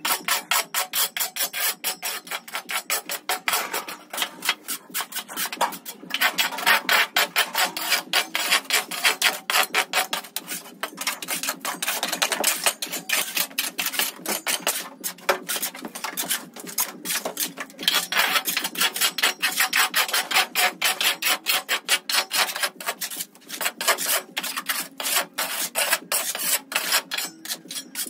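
Metal shovels scraping sand and dirt across a hard floor, several quick scrapes a second with no letup.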